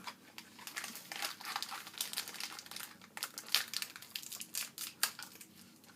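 Plastic wrapper of a Pocky pack crinkling and crackling in irregular bursts as it is handled and opened.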